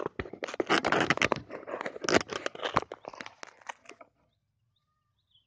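Close crackling and rustling of the phone's microphone being handled and rubbed against clothing, which stops abruptly about four seconds in.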